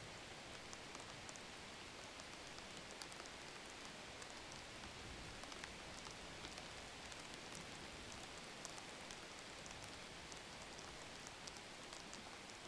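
Metal spoon stirring a thin brown liquid in a plastic bowl: faint, steady swishing with many small scattered ticks.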